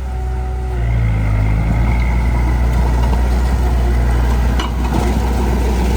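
Heavy diesel earthmoving machine's engine running steadily, with one short knock about four and a half seconds in.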